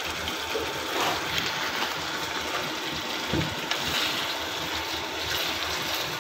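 Vegetable gravy simmering in a non-stick wok over a gas flame while a plastic spatula stirs it: a steady hiss with a few light scrapes.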